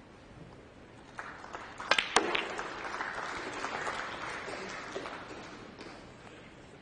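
Snooker balls clicking sharply against each other a few times about two seconds in, then audience applause that swells and fades away over the next few seconds.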